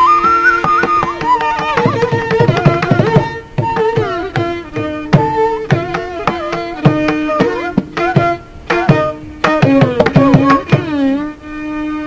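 Carnatic classical music, a ragam-tanam-pallavi in raga Shanmukhapriya: bamboo flute and violin play gliding melodic phrases over a steady drone, with the mridangam striking a quick rhythm underneath.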